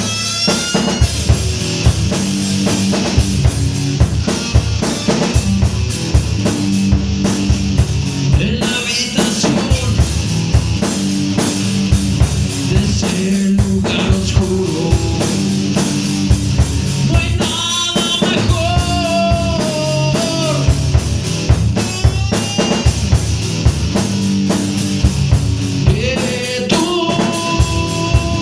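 Heavy metal music: a drum kit with rapid, evenly repeating bass-drum hits under distorted guitars. Held high notes bend in pitch about 18 seconds in and again near the end.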